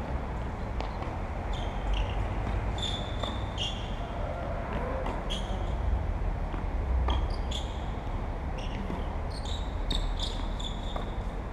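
Tennis rally: a ball struck and bouncing on the court every second or two, with many short high-pitched squeaks scattered throughout over a steady low background rumble.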